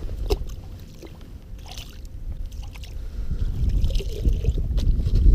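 Wind buffeting the microphone in a snowstorm: a low rumble that eases about a second in and builds again over the last couple of seconds, with a few light knocks over it.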